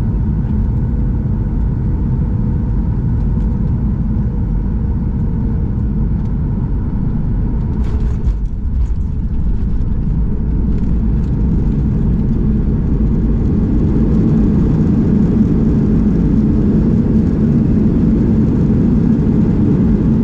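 Boeing 737-800 cabin noise: a steady, loud low rumble of the engines and rushing air around the airliner. There is a brief dip with a few clicks about eight seconds in.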